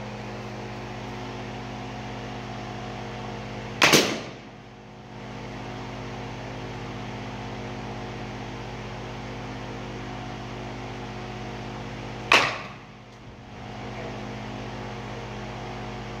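Two sharp cracks about eight seconds apart, a baseball bat hitting pitched balls, over a steady mechanical hum.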